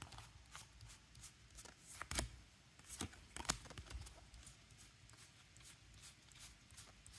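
Tarot cards being handled and set down one at a time: faint, irregular taps and flicks of card stock, the loudest about two seconds in.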